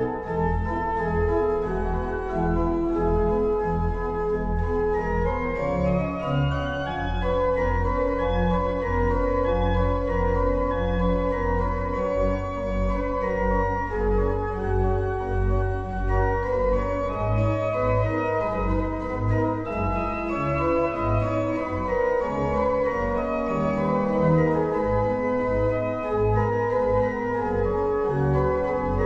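Pipe organ playing a full, sustained piece with chords held over a deep bass line. About six seconds in, a run climbs steadily upward.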